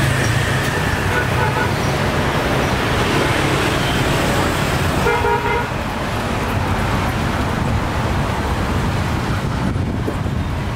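Steady road traffic rumble, with a vehicle horn tooting briefly a little over five seconds in.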